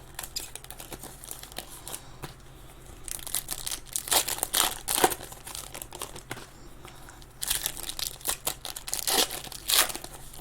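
Trading-card pack wrappers crinkling and tearing as packs are opened and handled, in irregular bursts with a quieter stretch in the middle.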